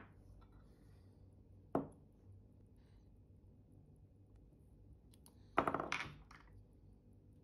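Small sharp clicks of watchmaker's hand tools on the bench while fitting watch hands: a single tap about two seconds in, then a short cluster of rapid clicking taps lasting about a second near the end.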